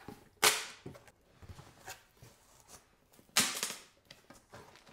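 Cardboard box being opened: two sharp cardboard slaps about three seconds apart as the lid and flaps are pulled open, with faint rustling and handling of the packaging between them.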